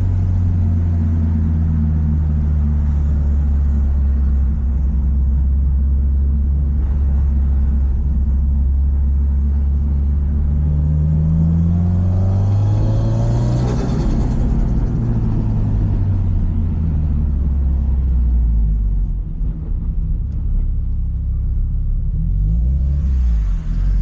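Subaru Impreza WRX STI's EJ207 turbocharged flat-four engine under way, its pitch sagging slowly, then rising as it revs up about halfway through and falling off again. The level drops briefly twice near the end.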